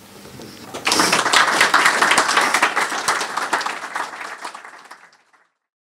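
Audience applauding, beginning about a second in and fading away near the end.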